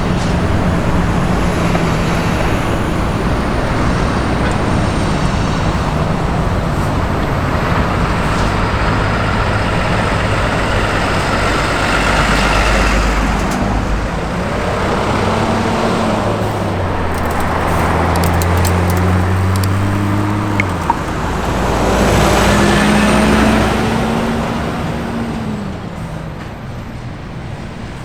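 Road traffic: car engines running at low speed. Their notes rise and fall as vehicles pull away and pass, over steady road noise.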